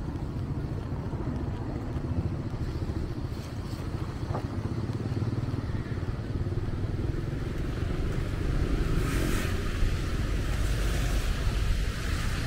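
Street traffic of motorbikes and cars passing: a steady low rumble that gets louder about two-thirds of the way in.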